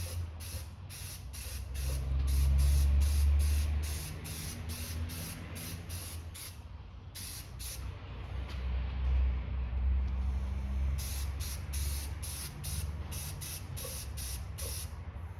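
Primer being sprayed onto a plastic model part: a hiss in rapid short pulses, about three a second, over a steady low hum.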